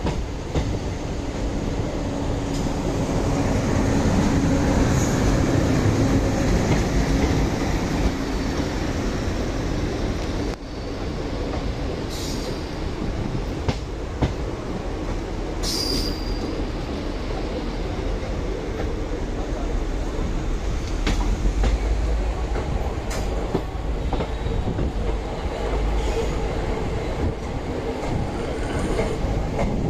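Running noise of a passenger train heard from an open coach doorway, with its wheels rolling and rattling over the rails. There are short, high wheel squeals about 12 and 16 seconds in.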